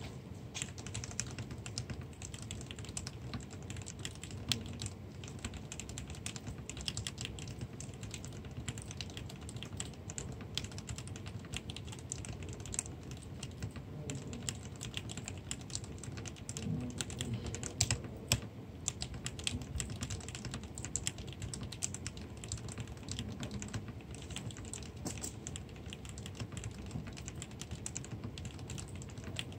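Typing on an Akon Real DX mechanical keyboard in an aluminium case, fitted with lubricated RGB Cherry MX Black linear switches and tuned stabilizers: a continuous, uneven stream of keystrokes.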